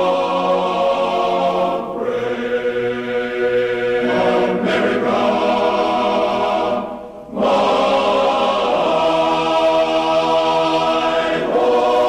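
Slow choral music: voices holding long, sustained chords that change every couple of seconds, with a brief break about seven seconds in.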